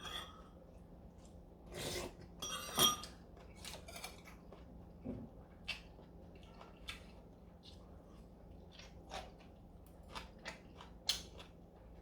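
Utensils clicking and clinking against bowls of galbitang, with chewing, as scattered light clicks, the loudest about two to three seconds in.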